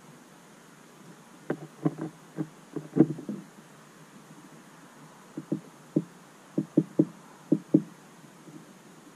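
A small bird pecking seed at the port of a plastic tube feeder: irregular sharp taps and knocks, in two bursts of about half a dozen each.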